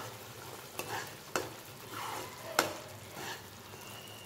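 Tomato puree frying in oil in a nonstick pan, sizzling faintly as a spatula stirs it through. Three sharp taps of the spatula on the pan stand out over the scraping.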